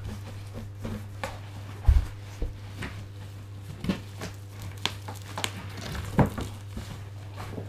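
A large bubble-wrapped toy box being handled and slid out of a cardboard shipping box: scattered cardboard rustles, plastic crinkles and knocks, with a low thump about two seconds in and another near the end. A steady low hum runs underneath.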